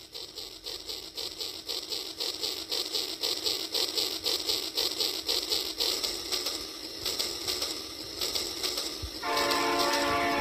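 Battery-powered toy steam locomotive running with its electronic chuffing sound, a quick, even rhythm of about four chuffs a second. About nine seconds in it sounds a steady electronic whistle toot.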